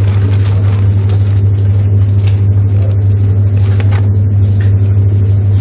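A loud, steady low hum runs throughout and drowns most else. Over it comes faint rustling of folded paper lottery tickets as a hand rummages in a glass jar.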